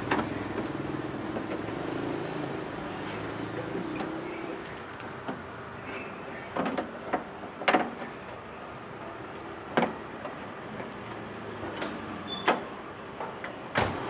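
Small electric motor of a car door's soft-close latch actuator whirring steadily for about four and a half seconds, then a series of separate sharp clicks and knocks from the door latch mechanism being worked.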